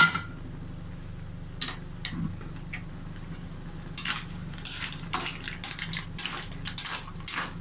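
A metal pot lid is lifted off with a ringing clink, then green mussels in their shells are stirred and shifted in the metal pot, shells clattering against each other and the pan in a quick run of clicks about four seconds in.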